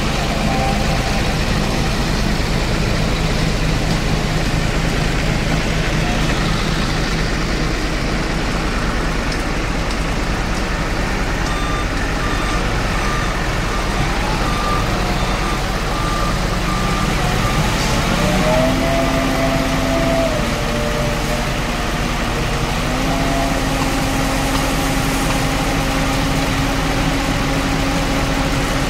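Diesel engine of a Schwing Stetter SLM 4300 self-loading concrete mixer running steadily while the machine works its loading bucket, the engine note stepping up in pitch about two-thirds through and staying higher. A short run of evenly spaced beeps sounds near the middle.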